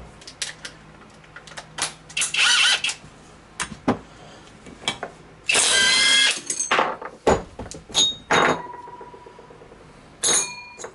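Hand tools and metal engine parts clinking and rattling during a small-engine teardown, with a few short rattling bursts and some brief metallic rings.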